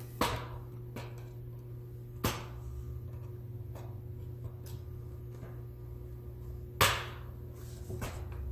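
Plastic snap-fit clips of a Lenovo IdeaPad 310's palm rest popping loose as a thin pry tool works along the front seam of the case. There are four sharp snaps, the loudest about seven seconds in, over a steady low hum.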